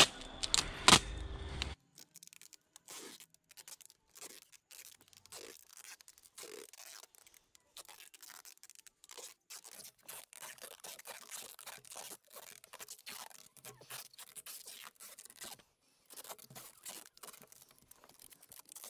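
Packing tape being pulled off its roll and pressed along a panel edge: two loud rips at the start, then a long run of faint crackling and peeling.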